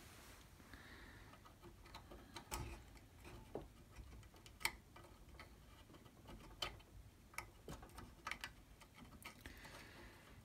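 Faint, irregular small clicks and taps: a thin drill bit knocking against a wooden scythe-snath grip while wood glue is worked into a slot in it.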